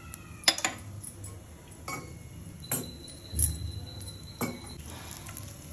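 Several separate sharp clinks of metal kitchenware against a non-stick frying pan while seeds and garlic are tempered in it, with a faint high steady tone for about two seconds in the middle.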